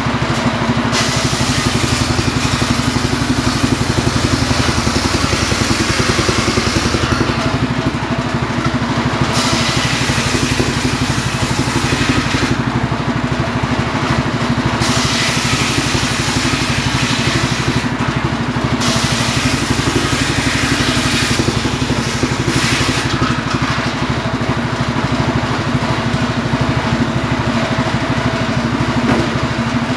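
Homemade engine-driven circular saw running steadily while its blade rips firewood logs lengthwise. Several cuts of a few seconds each lay a higher rasping noise over the steady engine hum, with short gaps between them.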